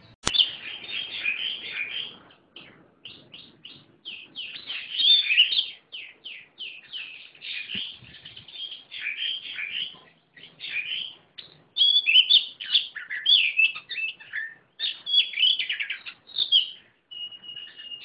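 Caged songbird singing a fast, varied song of high chirps and twittering runs, broken by short pauses, with a briefly held steady whistle near the end. A sharp click sounds right at the start.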